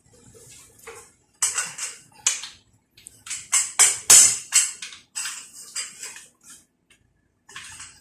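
Irregular metallic clinks and rattles from hand tools and loose engine parts, starting about a second and a half in, with a couple of short pauses.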